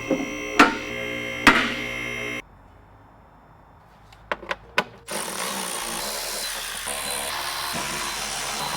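A short musical sting with a few struck notes, then a few sharp clicks and a steady electric-motor whir: the car lift raising the car.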